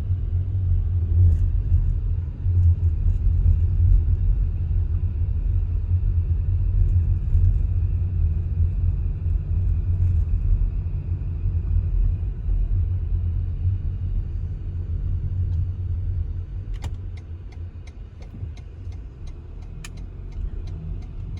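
Steady low rumble of a car driving slowly, heard from inside the cabin. From about 17 seconds in, a light clicking starts at about two clicks a second.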